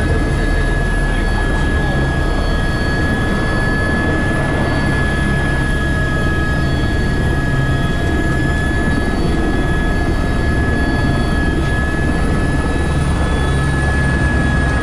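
Airbus AS350 Ecureuil helicopter running steadily: an even turbine-and-rotor rumble with a constant high whine over it.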